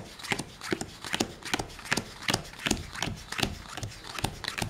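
Playing cards dealt one at a time from the hand onto two piles on a table, each card giving a short snap, about two and a half a second in an even rhythm.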